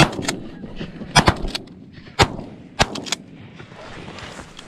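A volley of shotgun blasts from two hunters firing at geese, about half a dozen shots in quick, uneven succession over the first three seconds or so.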